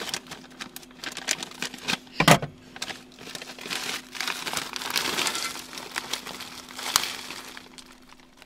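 Plastic bag of frozen mixed vegetables crinkling as it is opened and handled, with a loud knock about two seconds in and a sharp click near the end. A faint steady hum runs underneath.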